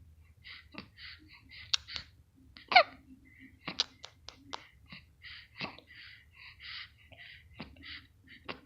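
A young child laughing in short breathy bursts, broken by sharp hiccups; the loudest hiccup comes about three seconds in.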